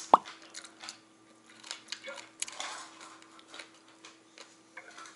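Metal chopsticks clicking against dishes as food is picked up and eaten, with one loud knock just after the start, then chewing and other eating sounds.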